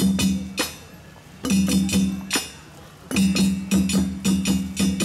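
Djembe and stick-played dunun drums playing an ensemble rhythm in short bursts of quick strokes with brief pauses between. A deep drum tone rings under sharp high hand slaps and stick hits.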